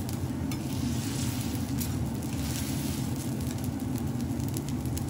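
Fried rice sizzling on a flat steel teppanyaki griddle over a steady low rumble, with a few light scrapes of a metal spatula in the first two seconds.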